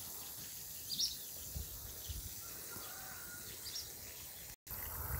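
Outdoor garden ambience: a steady background hiss with faint, brief bird chirps about a second in and again near four seconds, over low rumbles. The sound drops out for an instant near the end.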